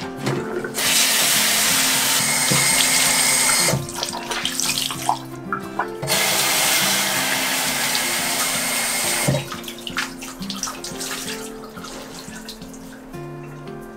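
Bathroom sink tap running in two spells of about three seconds each, the water splashing onto cleaning cloths as they are washed by hand. Soft background music runs underneath.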